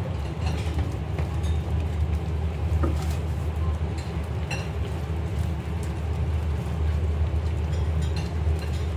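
Large stainless-steel udon boiler at a rolling boil: a steady low rumble, with a few light clicks as a wooden-handled mesh strainer stirs the noodles in the water.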